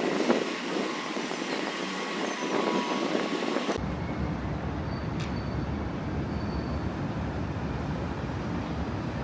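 Outdoor city traffic noise with wind buffeting the microphone at first. About four seconds in the sound changes abruptly to a steadier low traffic rumble.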